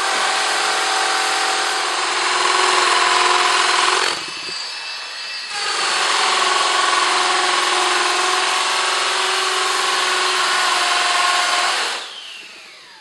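Cordless drill boring a pilot hole into a concrete floor with a masonry bit: one run of about four seconds, a brief pause, then a longer run of about six seconds, ending with the motor winding down in pitch near the end.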